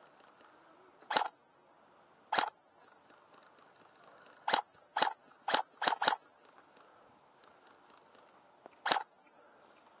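Airsoft guns firing single shots, eight sharp reports in all, irregularly spaced, with a quick run of five in the middle.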